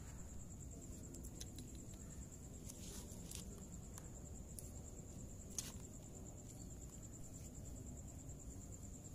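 A steady, high-pitched insect trill, like crickets at night. A few faint clicks come through it, with one sharper tap about five and a half seconds in.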